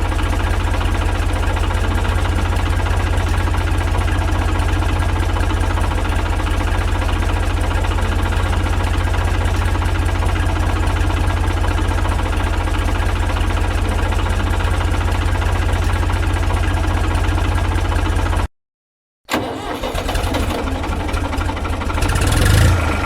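Tractor engine running steadily with a deep rumble. It cuts off suddenly about eighteen seconds in, and after a short silence the engine is heard again, rougher, swelling briefly near the end.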